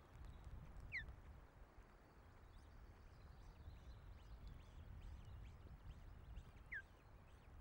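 Faint low rumble of wind buffeting the nest-cam microphone, with two short, thin, falling peeps from begging osprey chicks: one about a second in and one near the end.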